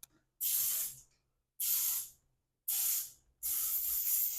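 Aerosol lubricant sprayed onto garage door metal hardware in four short hissing bursts, the last one held longer.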